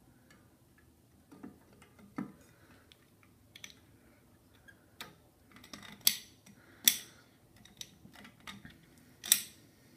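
Metal clicks and clinks as the bolts and steel sprocket of a motorized-bike rear sprocket kit are handled against the bicycle wheel's spokes and hub. The clicks are irregular and sharp, with the three loudest in the second half.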